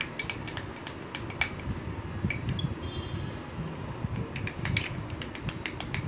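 Metal spoon stirring a slime mixture in a glass bowl, clinking and scraping against the glass at irregular moments.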